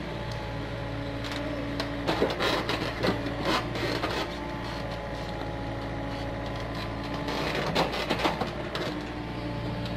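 Komatsu PC45 mini excavator's diesel engine running steadily as it digs, with clusters of knocks and clanks from the bucket working the soil about two to four seconds in and again near eight seconds.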